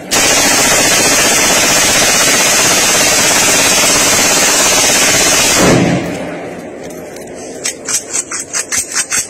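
Drum-fed AR-style rifle made in Darra Adam Khel firing a long burst of fully automatic fire, about six seconds of shots running together. After a short lull, a quieter, quicker string of about ten cracks comes near the end.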